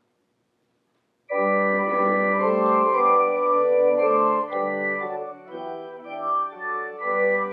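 Church organ coming in about a second in with full, sustained chords that change every second or so, playing on without voices.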